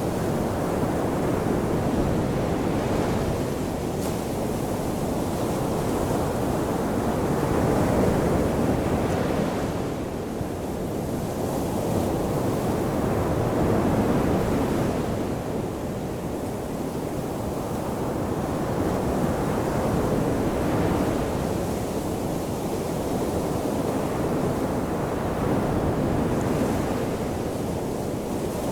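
Ocean surf washing onto a shore: a continuous rush of water that swells and eases about every six seconds.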